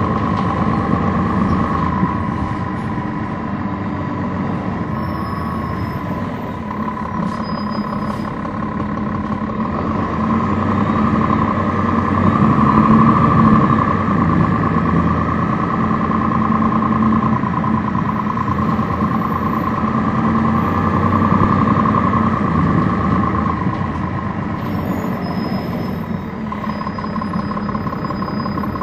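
Cummins ISL9 diesel engine of a 2011 NABI 40-foot transit bus, heard on board with the air conditioning off, running under way with a steady whine. The engine note swells about halfway through and again later, then eases off near the end.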